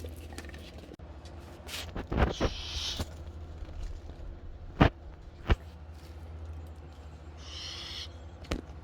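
Pet ferrets scuffling over a squeaky toy bird that stays silent here: a handful of sharp knocks and two short rushing, hiss-like noises, the first about two seconds in and the second near the end, over a steady low hum.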